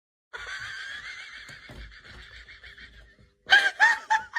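A person's long, high-pitched wavering squeal of laughter that slowly fades over about three seconds, followed near the end by a few short gasping bursts of laughter.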